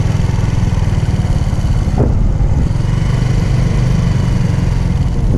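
Suzuki Big Boy 250 motorcycle engine running steadily while riding at road speed, with wind rushing over the microphone.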